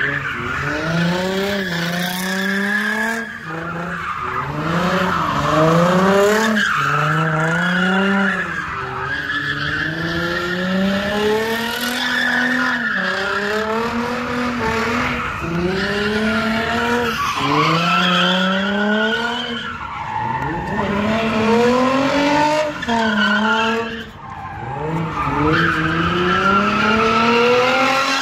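Nissan 350Z's 3.5-litre V6 revving hard, the revs climbing and dropping again and again about every two seconds as it drifts, with its rear tyres squealing and skidding on the asphalt.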